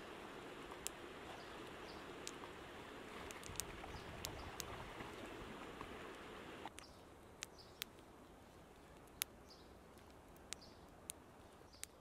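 Outdoor ambience: a steady rush of river water, which cuts off just past halfway. A quieter background follows, with scattered sharp ticks and faint, short bird chirps.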